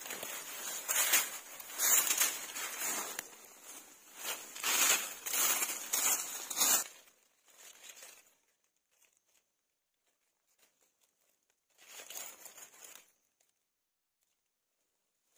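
Dry fallen leaves rustling and crackling as hands brush through the leaf litter to pick wild mushrooms: a dense run of irregular rustling for about seven seconds, then two short bursts with near silence between.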